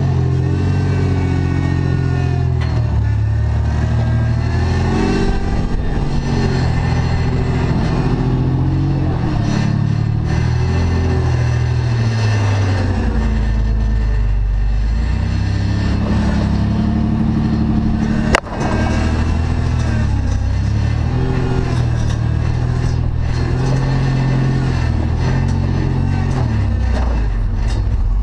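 Lifted Toyota 4Runner's engine revving up and down unevenly as it crawls over boulders, with one sharp knock about eighteen seconds in.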